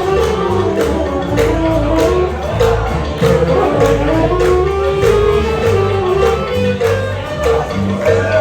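Music with a steady beat, a moving bass line and a melody over it.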